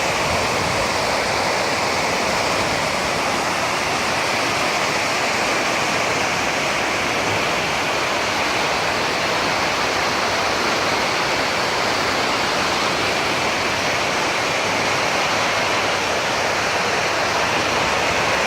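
Floodwater rushing, a steady unbroken rush that does not change.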